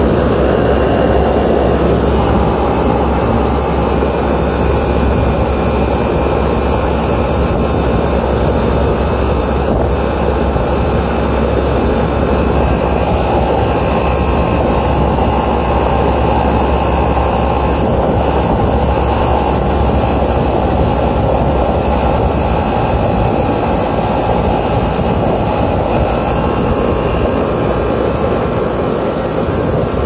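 Refrigeration condensing unit running steadily: the condenser fan's rush of air and the compressor's hum, loud and unchanging.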